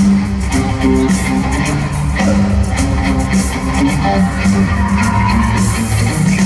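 A live rock band playing, led by electric guitar over bass and drums, heard from the audience in a large arena.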